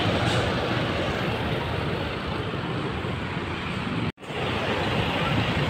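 Road traffic noise: a steady rush of passing vehicles. The sound cuts out for an instant about four seconds in.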